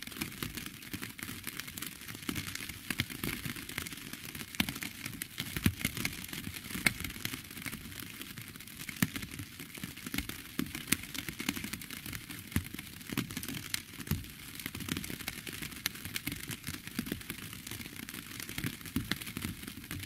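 Steady rain, its individual drops heard as a dense, irregular stream of ticks and taps.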